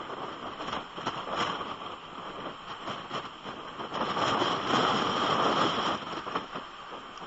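Storm wind and driving rain buffeting an outdoor camera microphone, with many small drop hits on the housing; a stronger gust swells about four seconds in and eases off after about two seconds.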